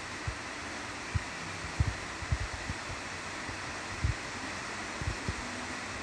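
Steady hiss of background noise with soft, irregular low thumps scattered through it, the strongest about two and four seconds in.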